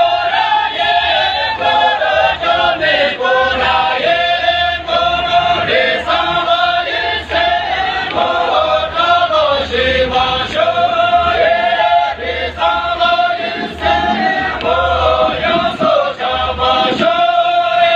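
A group of men and women singing a Tamang folk song (geet) together in a repeating chant-like melody.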